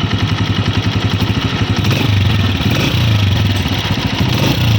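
Honda CG 125's single-cylinder four-stroke engine idling with a rapid, even beat, somewhat fuller from about two seconds in. This is the engine after its tappets were adjusted, run to check whether the tappet noise is gone.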